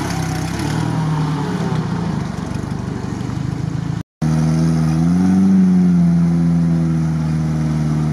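Engine of a lifted UAZ off-roader running under load through deep mud, revving up about five seconds in and then holding steady. The sound drops out for a moment just after halfway.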